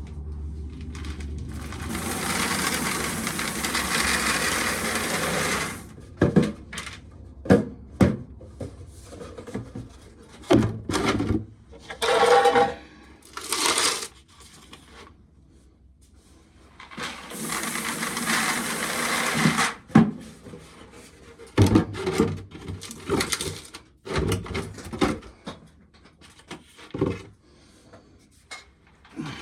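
Shelled corn kernels pouring out of a tipped pail in two long rushing pours, with scattered knocks and rattles of the pail and loose kernels in between.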